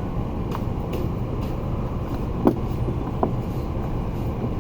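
Steady low background rumble, with a few light clicks about half a second, one second, two and a half and three and a quarter seconds in, the one at two and a half seconds the loudest.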